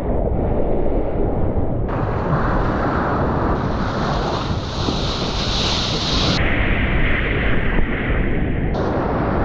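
Wind buffeting an action camera's microphone over rushing seawater and breaking surf. The noise shifts abruptly at several points.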